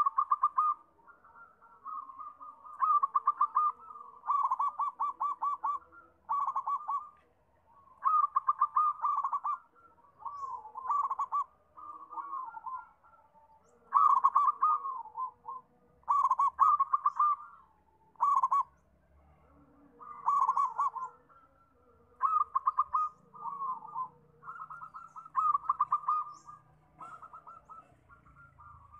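Zebra dove (perkutut) cooing: phrase after phrase of rapid staccato coos, each a second or so long, with short pauses between.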